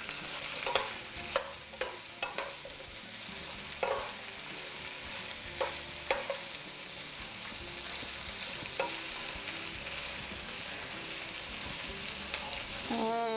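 Diced bell peppers and red onions sizzling in oil in a stainless steel skillet, with a metal spoon stirring them and clicking and scraping against the pan now and then.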